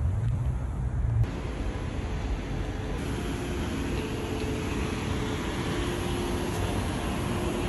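Steady low rumble of vehicle noise, with an abrupt change in its sound about a second in and again about three seconds in.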